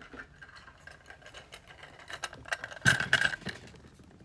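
Small metal parts of an EVVA Dual lock cylinder clicking and rattling as it is handled and worked apart. A cluster of louder clicks comes about three seconds in.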